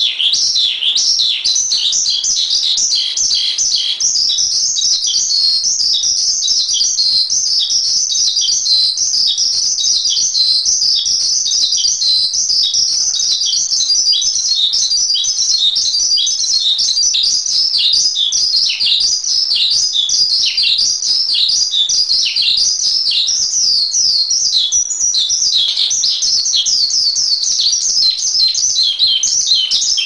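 Asian pied starling (jalak suren) singing a continuous, rapid run of high chirps and whistles with no pauses.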